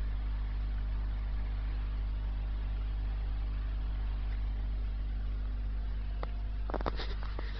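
Steady low electrical hum of running aquarium equipment, with a short cluster of clicks and knocks near the end.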